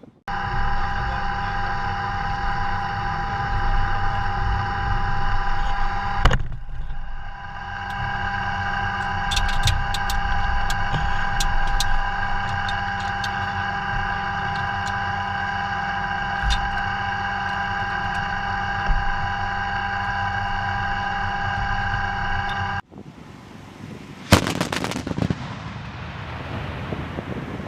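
A steady machine hum and whine runs for about twenty seconds and then cuts off abruptly. About a second and a half later comes one short burst of rapid fire from the Oerlikon GDF 35 mm twin cannon.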